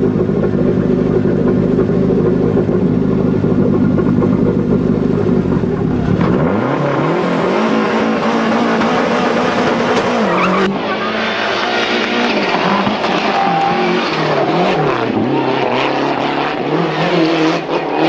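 Lancia Delta HF Integrale rally car's turbocharged four-cylinder engine, running steadily for about six seconds. It then revs hard, its pitch climbing and dropping again and again through the gear changes as the car accelerates away.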